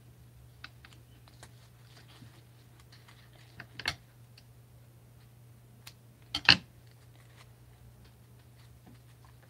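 Scattered light clicks and taps of hands handling small foam craft pieces, with two sharper knocks, one a little before the middle and a louder one about two-thirds through.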